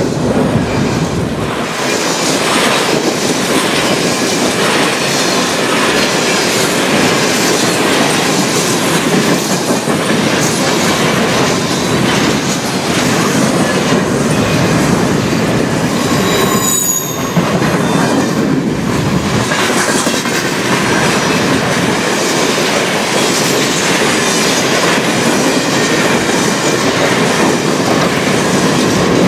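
Freight cars of a CN train rolling past close by: a steady rattle and rumble of steel wheels on rail, with regular clicks over the rail joints. A short, high-pitched wheel squeal comes about halfway through.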